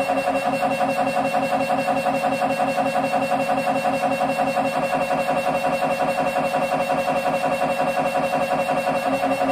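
Siemens Symphony Maestro Class 1.5 T MRI scanner running a scan sequence: its gradient coils buzz in a fast, even pulse of several beats a second. A steady mid-pitched tone runs through it with a thin high tone above. A lower hum drops out shortly after the start and comes back near the end.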